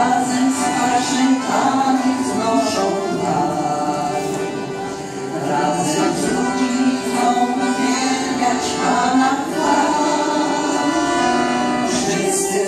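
Piano accordion playing a Polish Christmas carol with a small group of women singing along, chords held continuously.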